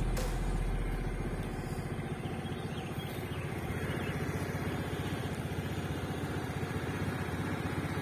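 A motor scooter's small engine idling with a steady, rapid, even pulse.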